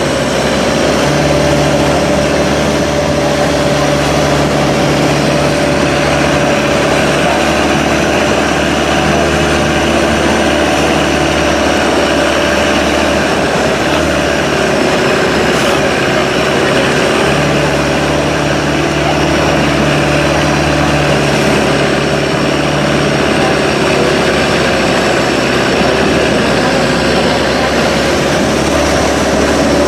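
Speedboat engines running steadily under way, with a steady rushing noise and a pitch that wavers slightly.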